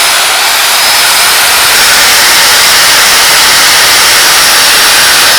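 Handheld marble cutter (wood/tile cutting saw) running free at full speed: a loud, steady, hissing whine from its high-speed electric motor and blade.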